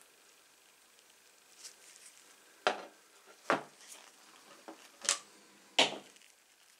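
Four sharp metallic clacks, about a second apart, as the steel halves and pivot hardware of dismantled TANG 300 tin snips are set down and handled on a wooden tabletop.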